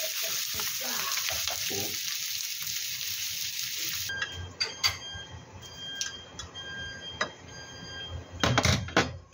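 Sausages sizzling in an oiled frying pan as they are turned with chopsticks. About four seconds in it gives way to scattered light clicks and knocks, with a louder clatter near the end.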